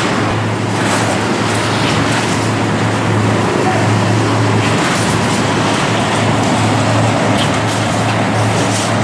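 Reinforcing wire mesh welding machine running: a loud, steady electrical hum that swells and eases unevenly, over general machine noise with a few faint clicks.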